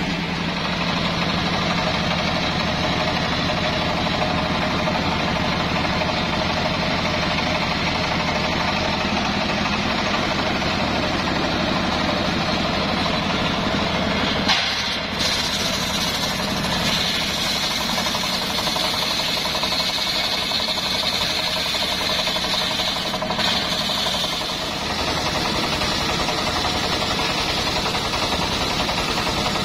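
Engine of a portable circular sawmill running steadily. After a brief break about halfway through, the circular blade is sawing through a johar hardwood log, adding a higher-pitched band over the engine.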